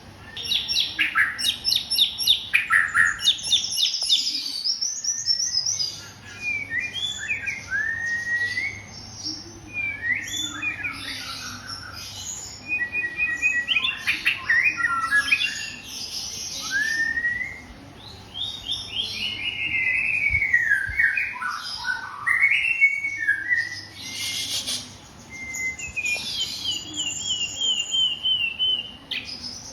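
White-rumped shama (murai batu) singing a long, varied song: clear whistles, rising and falling glides and fast runs of repeated notes, in phrases broken by short pauses.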